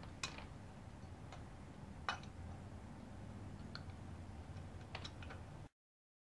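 Light metallic clicks and taps of the float bowl being fitted to an S&S carburetor and its screws started by hand: a few scattered sharp clicks, the loudest about two seconds in, over a faint low hum. The sound cuts off abruptly near the end.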